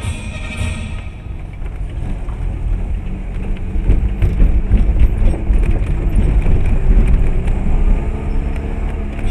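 Car driving in town, heard from inside the cabin: a low engine and road rumble that grows louder about four seconds in, with scattered knocks as the tyres cross tram rails.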